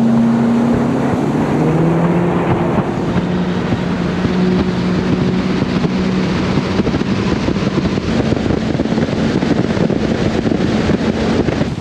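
Bass boat's outboard motor running at speed, its pitch rising over the first few seconds and then holding steady, with wind rushing over the microphone.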